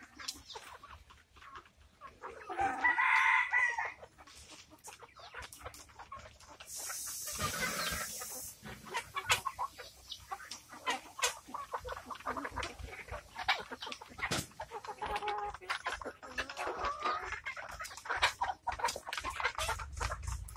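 A backyard flock of Rhode Island Red and White Leghorn chickens clucking throughout, with a rooster crowing once about three seconds in. A brief rustling hiss comes a few seconds later.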